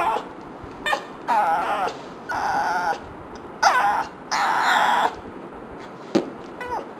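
A dog giving short whining cries that slide up and down in pitch, taking turns with buzzy fart sound effects, in a string of separate half-second sounds.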